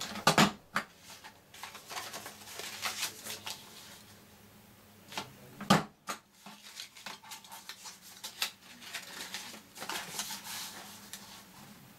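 Patterned paper rustling and sliding on a plastic Envelope Punch Board as it is lined up, with sharp clacks of the board's punch cutting notches at the score lines: a few in the first second and a single loud one near the middle.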